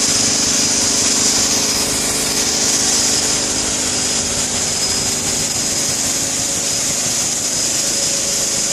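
Vehicle-mounted mosquito fogging machine running steadily: a constant engine drone with a hiss and a thin, steady high whine on top.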